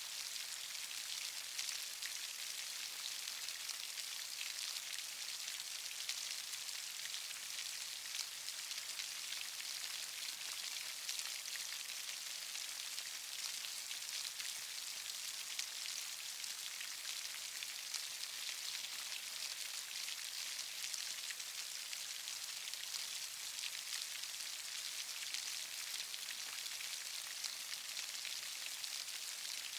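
Steady rain falling: an even hiss flecked with many fine drop ticks.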